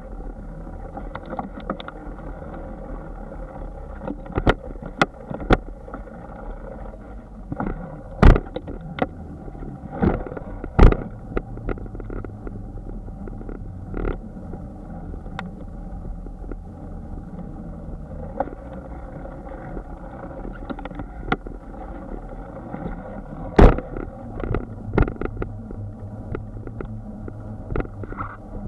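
Bicycle ride heard from a bike-mounted camera: a steady rumble of tyres and wind, broken by many sharp knocks and rattles as the bike jolts over bumps and joints in the pavement. Three of the knocks are much louder than the rest.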